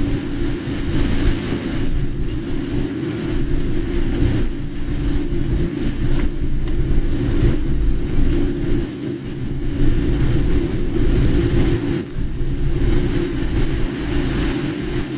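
Car driving in heavy rain: steady engine and road hum under a loud hiss of rain and tyre spray.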